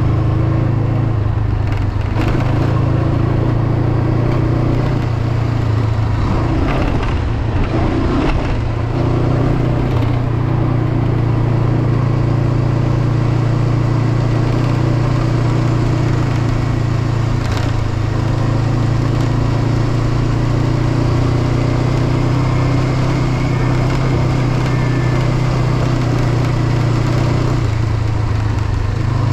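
Honda CB500X's parallel-twin engine running steadily at cruising speed on the move, with wind and road noise and a few brief clicks and knocks. The windshield rattles because one of its mounting screws is missing.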